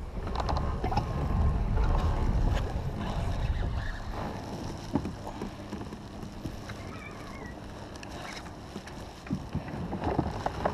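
Water sloshing against a pedal kayak's plastic hull under way, with wind rumbling on the microphone, loudest in the first few seconds. Scattered light knocks and clicks from the pedal drive and fishing gear come through, with a cluster near the end.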